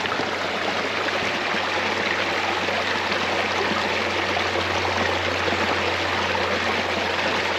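River water rushing along a stretch of the river short of the main falls, a loud, steady, unbroken rush.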